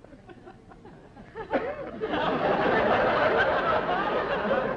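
Studio audience laughing, faint at first, then swelling into loud group laughter about a second and a half in.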